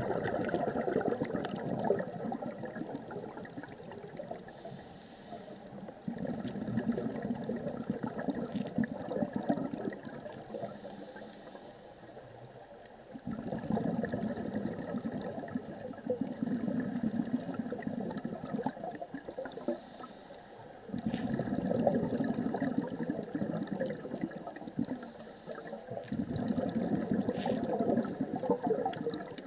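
A scuba diver breathing through a regulator, heard underwater. A short hissing inhale is followed by a long rush of exhaled bubbles, and the cycle repeats about every seven seconds.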